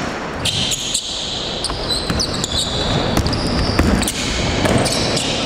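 Basketball game sounds: a ball bouncing on a gym floor with scattered thuds and several short, high-pitched squeaks.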